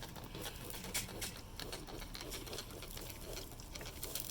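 Hand spray bottle spritzing the ribs on the grill: a series of short, irregular sprays, a few a second, over a steady low background hum.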